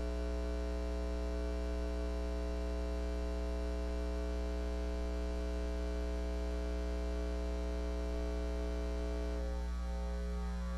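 Steady electrical mains hum with a dense stack of even overtones, unchanging in pitch and level. A faint wavering sound joins it about nine and a half seconds in.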